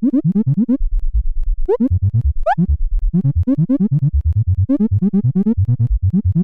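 Electronic synthesizer sound effect: a fast run of short tones, each sliding upward in pitch, about eight a second, over a pulsing low bass.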